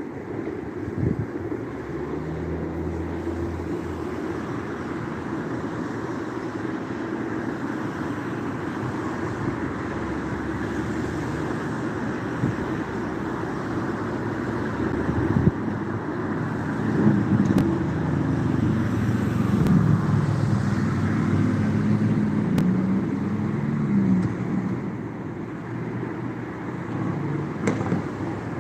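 Road traffic running steadily, with an engine hum from a passing vehicle swelling for several seconds past the middle.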